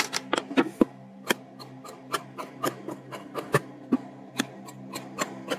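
Large steel tailor's shears snipping through folded cloth: a quick, irregular run of sharp clicks, about four snips a second, over a faint steady low hum.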